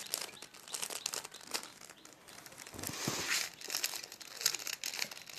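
Plastic Rubik's cube being turned by hand through a solving algorithm: a quick, irregular run of clicks and rustling as the layers are twisted.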